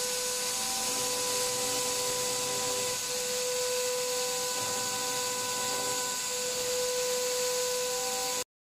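High-speed CNC spindle machining an aluminium plate: a steady high whine with a few overtones over the strong hiss of the air-mist coolant spray. The sound cuts out abruptly just before the end.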